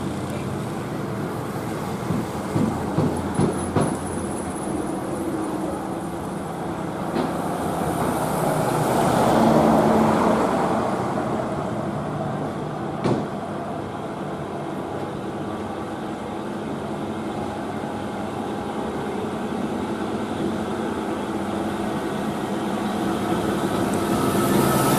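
Heavily loaded Mitsubishi Fuso 6x4 diesel truck climbing slowly uphill, its engine running steadily under load, with other traffic passing. The sound of a passing vehicle swells to its loudest about ten seconds in, and a few short knocks come two to four seconds in.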